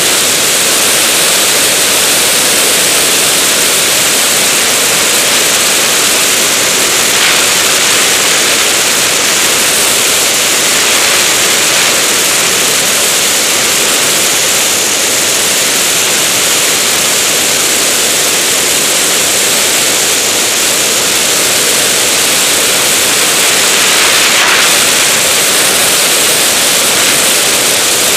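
Steady rush of airflow over the microphone of a camera mounted outside a DG-100 sailplane in flight: a loud, even hiss with no engine note.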